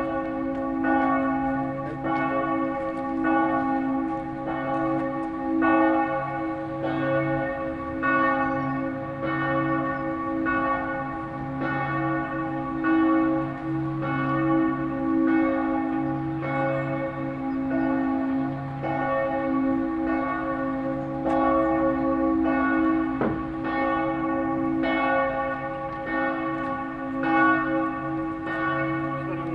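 Church bells ringing in a continuous peal: several bells of different pitch struck over and over, about once a second, their tones ringing on and overlapping.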